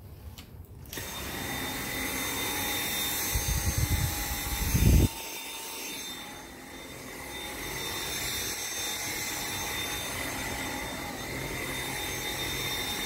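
Dyson V7 Motorhead cordless stick vacuum starting up about a second in and then running steadily on carpet, a whine over its motor hiss. A loud low rumble and thumping comes from about three to five seconds in.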